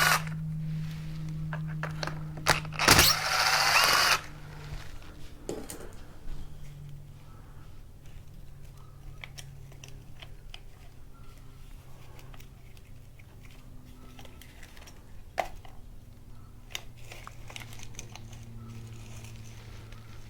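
Cordless power driver with a T25 Torx bit whirring, briefly at the start and again for about a second around three seconds in, backing out a screw. After that come light clicks and knocks of parts being handled.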